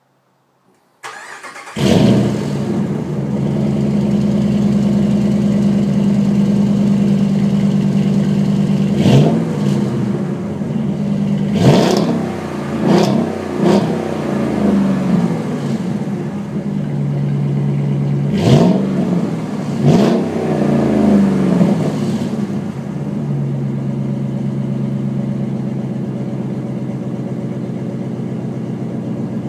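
2014 Ram 1500's 5.7 L Hemi V8 through an MBRP 304 stainless cat-back exhaust with dual rear tips: the starter cranks about a second in and the engine catches with a flare, then idles. In the middle it is revved in several quick blips, rising and falling, before it settles back to a steady, lower idle.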